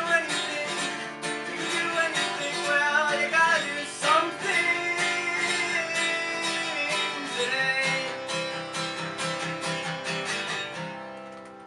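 Acoustic guitar strummed in a steady rhythm, its final chords dying away and fading out near the end.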